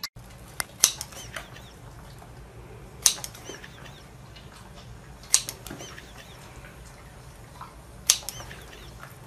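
Scissors snipping pieces off a sausage: four sharp snips, about two to three seconds apart, over a low steady hum.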